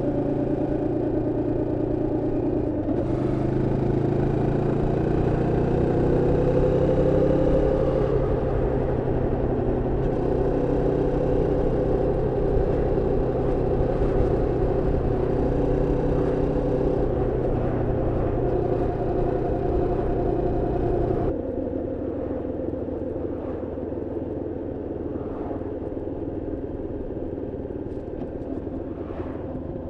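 Moto Morini X-Cape 649 parallel-twin engine running under way, held at moderate revs during break-in and pulling steadily with a slight rise in pitch. About two-thirds of the way through the throttle is closed, and the sound drops suddenly to a softer, slowly falling note as the bike slows.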